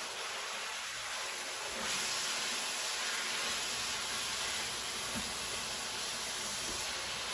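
Ground beef sizzling in a hot skillet as it is stirred with a spatula: a steady hiss that grows a little louder about two seconds in.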